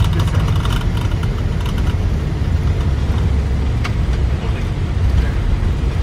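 Steady low rumble inside an Airbus A320 cockpit during the landing rollout: the airliner rolling along the runway on its landing gear with the engines at idle.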